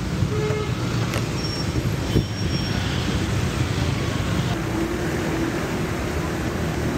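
Steady road traffic: a low rumble of vehicle engines and tyres, with a few brief tones and a sharp knock about two seconds in.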